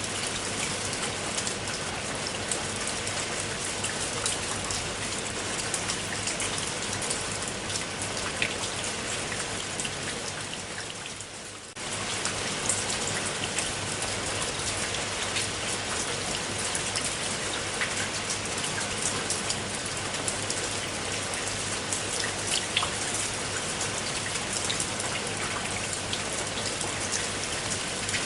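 Steady rain falling, with many distinct drops pattering on a surface. About ten seconds in it fades down briefly, then comes back suddenly about twelve seconds in.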